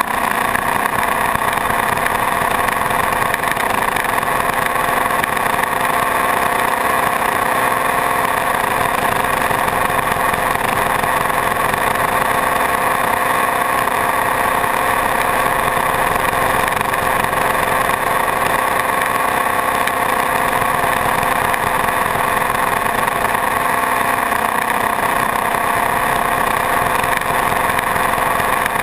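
Suzuki GS500 motorcycle's parallel-twin engine running at a steady cruising speed, with wind rush over the bike.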